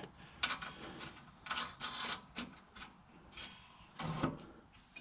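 Intermittent metal scrapes and clicks of hand tools and a suspension bolt being worked into place on a car's rear suspension: several short, separate noises.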